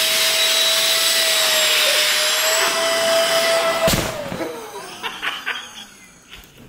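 Fan-driven avalanche airbag pack inflating: a loud, steady, high-pitched motor whine. About four seconds in there is a sharp thud, then the whine falls in pitch and fades as the fan spins down.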